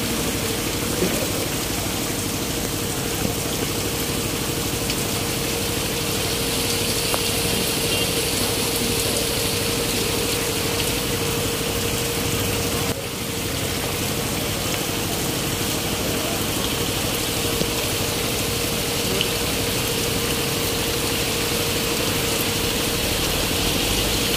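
Heavy rain pouring onto a road and bare ground, a steady hiss of water with a constant hum underneath.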